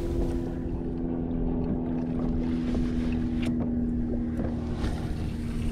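Wind buffeting the microphone over a steady, even-pitched hum from the kayak's Minn Kota electric motor, with a few faint clicks.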